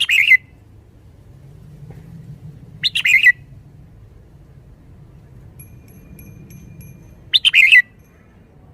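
Red-whiskered bulbul singing three short, loud phrases, one about every three to four seconds.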